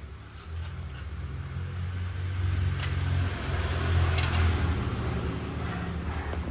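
Hero Honda Splendor's single-cylinder four-stroke engine running. Its low rumble picks up about half a second in, is loudest around the middle, then eases off a little.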